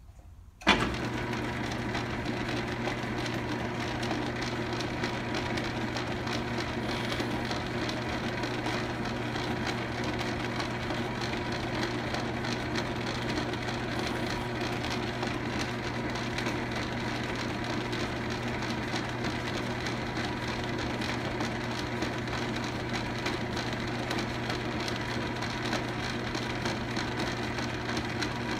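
Logan 10-inch lathe switched on with a sharp click about a second in, then running steadily: a low hum with an even, fine rattle from its drive and gearing. It is under power for a threading pass with a boring bar inside a brass half-nut blank.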